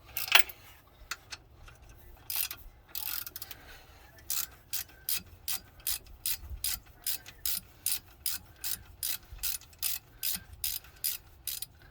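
Ratchet with a 9/16-inch socket clicking as a power steering pump bolt is turned out: a few scattered clicks, then a steady run of about two to three clicks a second.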